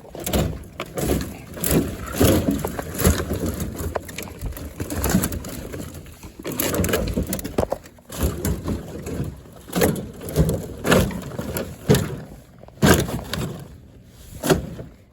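Boots stomping down a load of freshly cut branches in a pickup truck bed to compact them, the leaves and twigs crunching and rustling with each irregular stomp.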